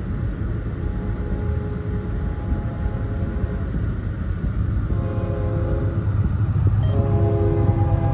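Approaching CSX diesel freight locomotives rumbling, then their air horn sounds a multi-note chord: a blast about five seconds in, followed by a louder, longer one from about seven seconds in.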